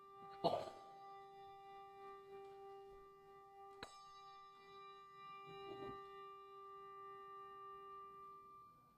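A single sustained musical note with many overtones, held steadily and then ending shortly before the end. A sharp loud knock comes about half a second in, and a brief click near four seconds.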